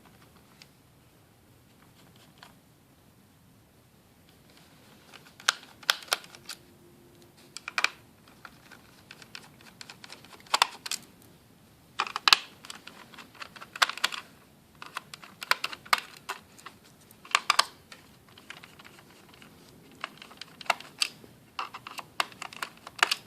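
Clusters of small sharp clicks and taps as a screwdriver backs screws out of a laptop's plastic bottom case, starting about five seconds in and coming in irregular bunches.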